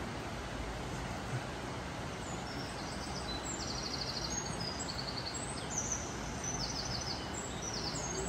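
A small songbird singing repeated high, fast trilling phrases from about two seconds in, over a steady rushing background noise.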